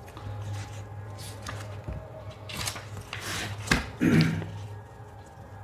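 Sheets of paper rustling and sliding as one page is lifted away and another laid down on the table, with a sharp tap and a louder rustle about two-thirds through.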